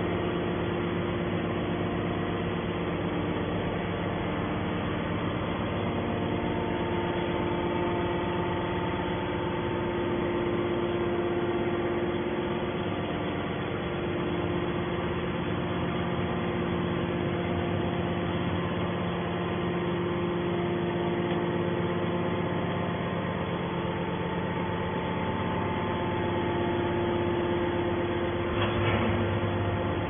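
Hydraulic scrap metal baler's electric motor and hydraulic pump running with a steady hum of several constant pitches, swelling slightly now and then.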